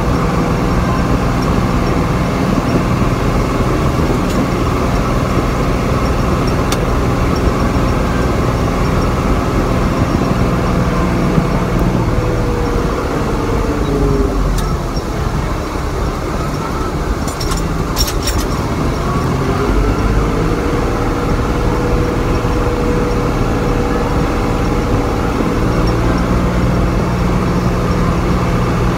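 Tractor engine running, heard from inside the cab. About halfway through, the revs drop and then climb back up, with a few short clicks near the lowest point.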